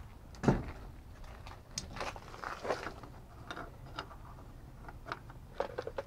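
Shimano Hollowtech bottom bracket cup being tightened into the aluminum frame's threaded shell with a Park Tool BBT9 wrench, snugged short of full torque: a sharp knock about half a second in, then scattered metallic clicks and scrapes of the tool on the cup.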